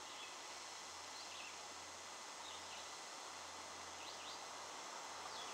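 Quiet, steady outdoor background hiss with a few faint, short bird chirps scattered through it.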